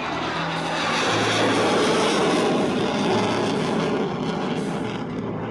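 Jet noise from a pair of F/A-18 Hornet-family fighters flying past, swelling to its loudest about two seconds in and then fading, over music with a steady bass line.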